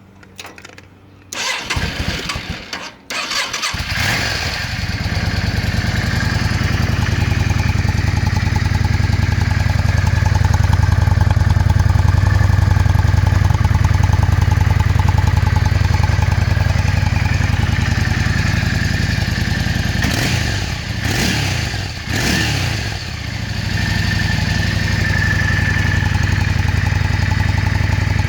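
A 1999 Yamaha V-Star 650 Classic's air-cooled V-twin, through its stock exhaust, is cranked on the starter and catches after a couple of seconds, then idles steadily. About twenty seconds in it is revved up and back down twice, then settles back to idle.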